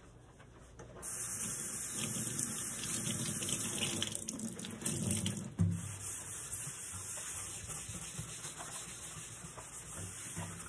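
Cloth rubbing and wiping over a wooden table top, a steady scrubbing hiss that sets in about a second in and swells heaviest around the middle.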